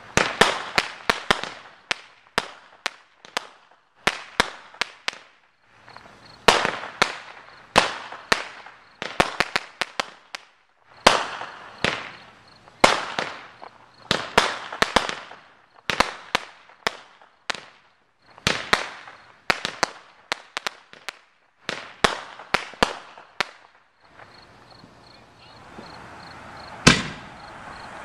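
Aerial fireworks going off in quick succession: sharp bangs and crackling reports, several a second. Near the end the bangs thin out into a few seconds of steady hiss, then a single loud bang.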